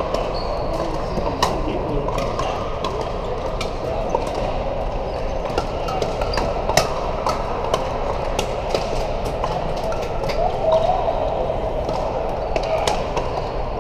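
Pickleball paddles popping against hollow plastic balls on many courts at once: frequent, irregular sharp pops over a steady murmur of voices in a large hall.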